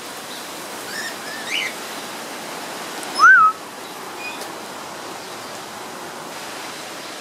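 Aviary birds calling: a few soft chirps about a second in, then one loud, short whistle that rises and falls about three seconds in, over a steady background hiss.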